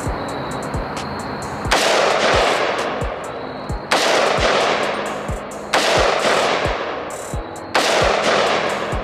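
Four shots from a 7.62 Radical AR pistol with a 10-inch barrel, about two seconds apart, each loud and sudden with a long fading echo. A music track with a steady thumping beat plays underneath.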